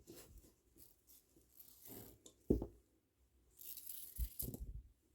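Close-up handling of plastic kandi beads and string: irregular rustling with a few sharp little clicks, the loudest about halfway through.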